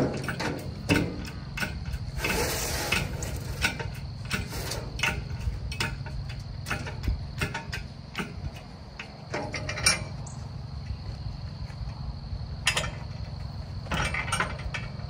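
Irregular metal clicks, clanks and rattles from a steel engine hoist and dump cart being handled and adjusted under the weight of a wooden utility pole, with a denser rattling stretch about two seconds in and a few louder clicks near the end.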